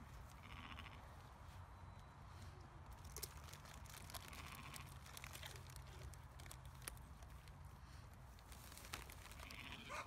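Sheep bleating faintly a few times.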